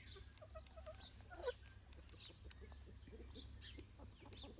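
Chickens clucking and calling softly, with one louder falling call about a second and a half in, amid high, quick falling chirps.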